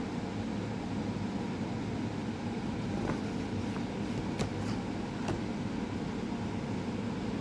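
Steady low hum of room background noise, of the fan or air-conditioner kind, with a few faint clicks and rustles of paper being handled between about three and five and a half seconds in.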